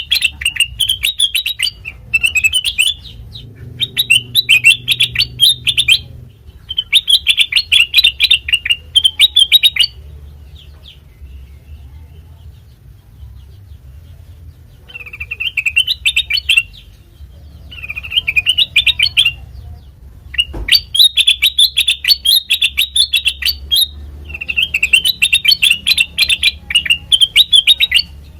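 Kutilang mas bulbul singing in repeated bursts of rapid, bright chirping phrases, each a second or three long, with a quiet spell of about five seconds in the middle. A single low thump comes about two-thirds of the way through.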